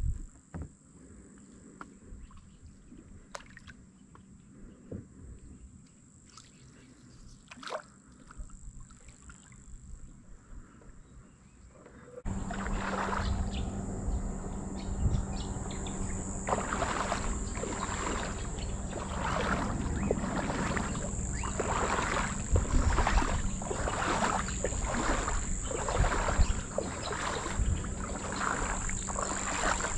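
Footsteps wading through shallow tidal water among mangroves, each step a splash, about one a second. The wading starts suddenly about twelve seconds in, after a quiet stretch with only a few faint ticks.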